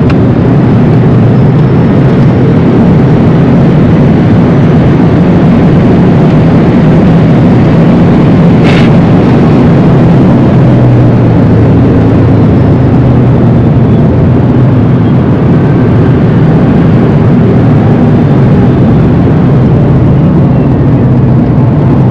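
Inside the cabin of a Rimac Nevera electric hypercar at speed: loud, steady road, tyre and wind noise, with a faint high electric-motor whine rising and falling. A single sharp click comes about nine seconds in.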